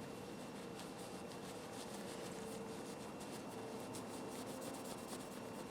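Faint rubbing and light clicks from hands handling a small pair of steel cutters, over a steady low hum.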